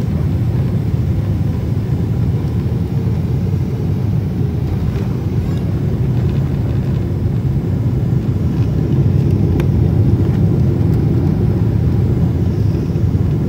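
Airliner cabin noise on the landing roll: a loud, steady low rumble from the aircraft rolling down the runway with its ground spoilers raised, swelling a little past the middle.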